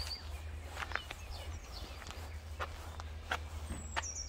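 Outdoor street ambience: a few sharp footstep-like clicks over a low steady rumble, with a small bird giving a high, stepped, falling call right at the start and again near the end.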